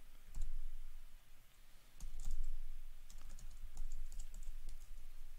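Typing on a computer keyboard: scattered keystrokes in short bursts, quickest from about two to four and a half seconds in.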